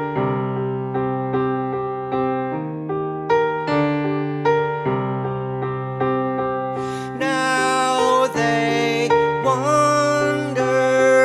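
Electric piano playing a slow, steady chord intro to a song. About seven seconds in, a brighter, fuller part joins, with a melody line that bends in pitch.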